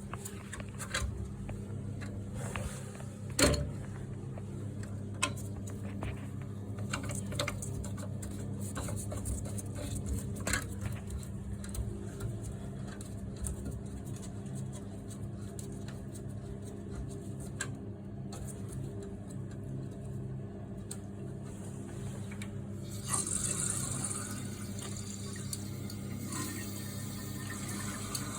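Handling of a toilet cistern's fill-valve parts: scattered clicks and knocks, the sharpest a few seconds in, over a steady low hum. Near the end, water starts running into the cistern.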